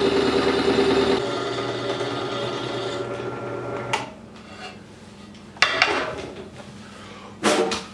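Benchtop drill press running, a 1/2-inch cobalt bit cutting a hole through heavy-gauge black steel pipe; the motor hum stops about four seconds in. Then come a sharp metal knock and a clatter as the steel pipe is moved on the drill press.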